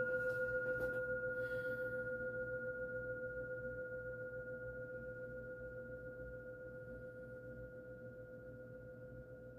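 Singing bowl ringing after a single strike: a lower and a higher steady tone slowly fading, with a gentle wavering in loudness.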